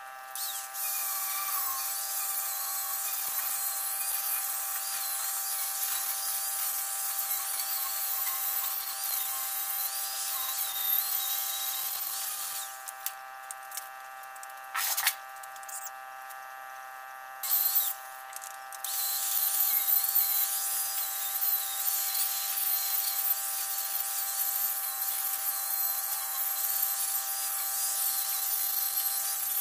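Electric angle grinder running with a steady high whine while it scours rust off the steel crib frame. Several times, between about 12 and 19 seconds in, the grinding hiss drops out as the tool lifts off the metal, while the motor keeps running.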